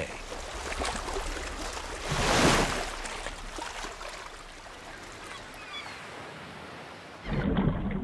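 A whale's blow as it surfaces: one loud whooshing exhalation about two seconds in, lasting under a second, over the steady wash of sea water.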